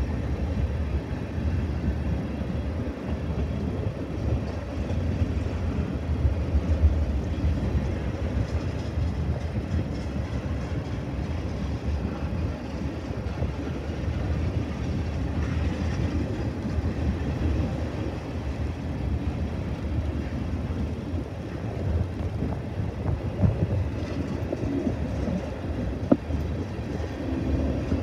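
Freight train of tank cars rolling past on the rails, making a steady low rumble. A few sharp clicks stand out, one clearly near the end.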